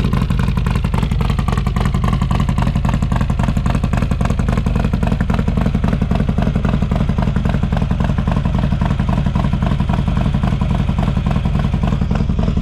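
Harley-Davidson Road Glide's 128-cubic-inch big-bore Milwaukee-Eight V-twin idling steadily through its exhaust, on its first cold start since the engine build.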